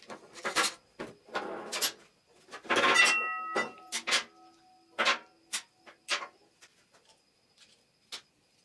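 Parts and tools being handled during a scooter restoration: a string of clicks, knocks and short scrapes. About three seconds in, a metal piece clinks and rings briefly.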